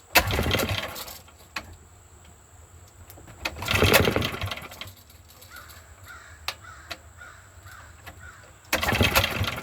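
Small generator engine pull-started by its recoil cord three times, a few seconds apart, with the choke held on; it turns over but does not catch, after sitting unused for months.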